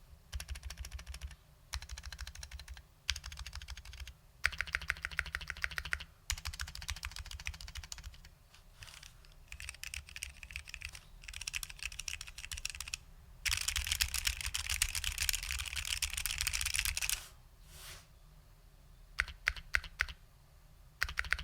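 Typing on a custom 60% keyboard with lubed SKCL Green Alps switches and OG ABS doubleshot keycaps. Runs of rapid keystrokes are broken by short pauses, with a long unbroken run about two-thirds of the way through and a few single keystrokes near the end.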